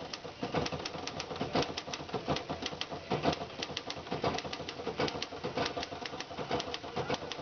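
Remington Standard manual typewriter being typed on: an uneven clatter of sharp key strikes, several a second.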